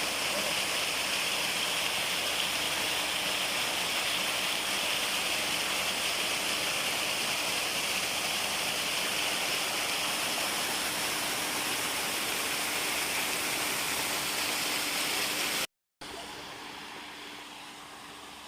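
Steady rush of flowing water with a faint steady hum beneath it. It cuts out for a moment near the end and comes back quieter.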